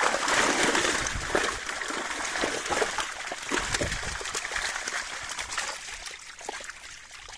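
Water splashing and trickling in a quick, irregular patter of small splashes, loudest in the first second and dying down near the end.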